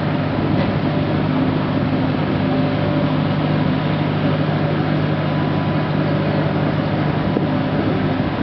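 Niederfinow ship lift's drive machinery running as it raises the water-filled trough: a steady mechanical drone with an even low hum that holds without change.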